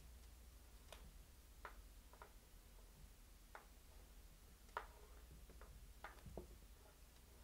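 Faint, scattered clicks and taps, about eight in all, as a wooden spoon pushes diced cucumber off a wooden cutting board and the pieces drop into a ceramic bowl of chopped lettuce.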